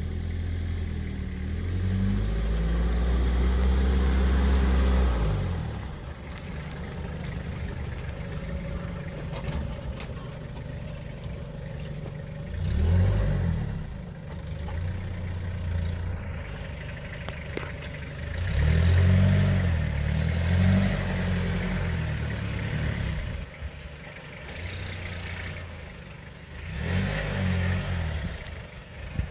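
Toyota Hilux SR5 2.8 four-cylinder diesel engine revving under load in repeated surges as the pickup works over loose dirt mounds: one long push in the first five seconds, then shorter bursts around the middle and near the end.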